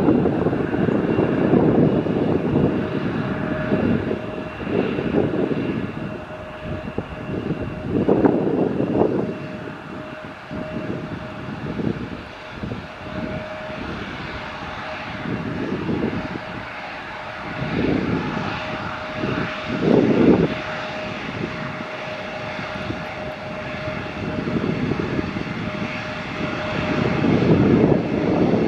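Airliner engine running with a steady whine, with irregular gusts of wind rumbling on the microphone.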